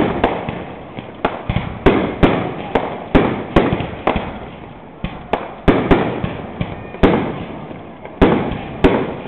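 Fireworks display: aerial shells bursting in a rapid, irregular run of sharp bangs, about two a second, each trailing off in a rumbling echo.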